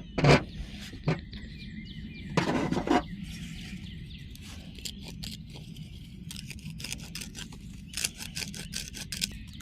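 Hand file rasping the inside edge of a freshly cut plastic barbed hose fitting, in short scraping strokes that come quicker and closer together near the end. The filing clears a burr and inner lip that would restrict the bilge pump's flow.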